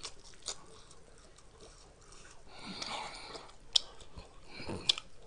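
Close-miked eating noises as a man chews a mouthful of spicy noodles: faint wet chewing at first, then a breathy stretch of heavy breathing about halfway, and two sharp mouth clicks near the end.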